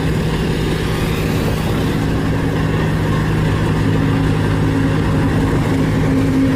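A vehicle engine running steadily: a continuous rumbling hum with one steady low tone and a fainter higher tone that comes and goes.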